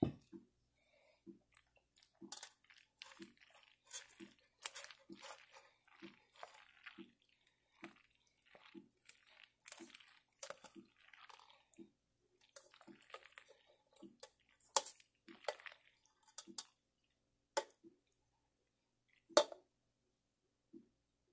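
A plastic spoon stirring mayonnaise-dressed macaroni salad in a stainless steel pot as sweet relish is mixed in: soft, wet squishing strokes about once a second, with a few sharp knocks against the pot in the second half.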